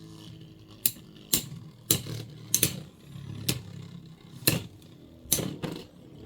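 Two Beyblade X tops, Blackshell and Hell Scythe, spinning in the stadium with a steady whir and striking each other with about eight sharp plastic clacks at uneven intervals: uppercut attacks.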